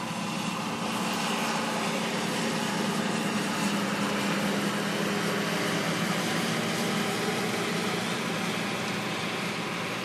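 Combine harvester passing close by while harvesting wheat: a steady, pretty loud engine and machine drone that swells in the middle and eases off toward the end.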